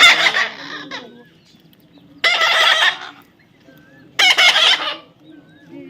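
A parrot screeching: three loud, harsh calls, each under a second long, about two seconds apart, with faint short whistles between them.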